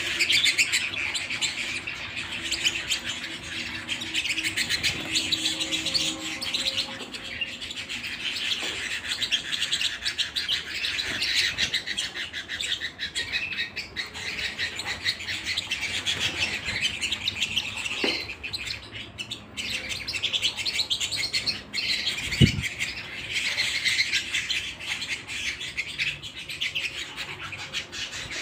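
Domestic canary singing a long, continuous song of rapid trills and chirps. A single low thump sounds about two-thirds of the way through.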